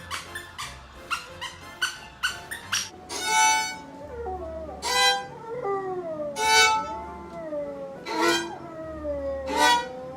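Music: a quick run of short plucked notes, then about five long, sliding, violin-like notes.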